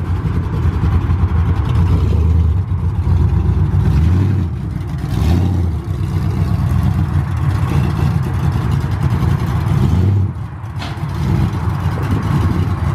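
Chevrolet pickup truck's engine running through its newly installed exhaust, a deep rumble that swells and eases several times as it is revved.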